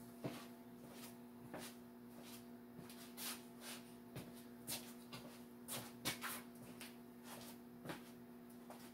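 Faint scattered knocks and shuffling of someone moving about on foot and handling things, at irregular intervals over a steady low electrical hum.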